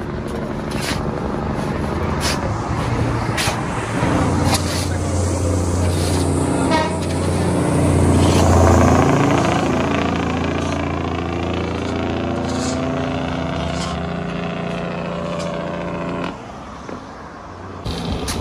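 Diesel dump truck engine labouring hard under load up a steep hill, growing louder as the truck passes close about eight to nine seconds in, then easing off near the end.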